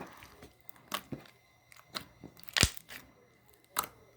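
Clear slime with fishbowl beads being squished and poked by hand: scattered sharp crunchy clicks and pops, the loudest about two and a half seconds in.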